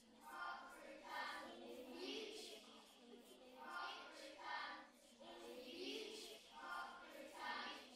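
Faint children's voices singing or chanting a short phrase over and over, the same pattern coming round about every two and a half seconds, with soft hissing sounds between the phrases.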